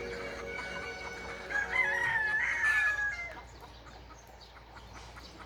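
A rooster crowing once, starting about a second and a half in and lasting nearly two seconds. The crow rises, holds a wavering pitch, then drops away.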